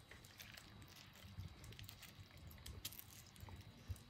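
Near silence, with faint scattered soft taps as chopped fruit is tipped from a glass bowl onto a layer of custard.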